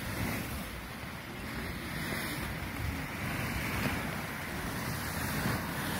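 Boiling hot spring churning and splashing: a steady rush of surging water, with wind buffeting the microphone.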